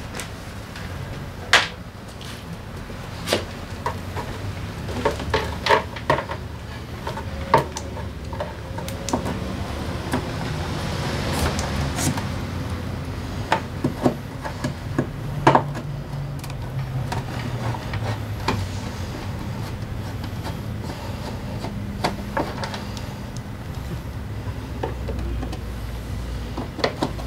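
Hand-tool work on a scooter's front plastic bodywork: scattered sharp clicks and knocks of the tool and the fasteners, over a low steady hum.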